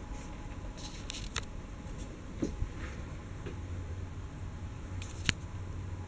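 Handling and movement noise from a handheld camera being carried through a small room: a low steady hum with a few light clicks and knocks, the sharpest one near the end.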